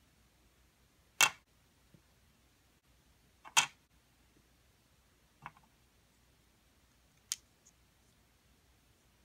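Four sharp clicks and taps of a miniature plastic taiyaki pan being handled, its hinged lid closed and the pan set down on a plastic toy table; the first two clicks are the loudest.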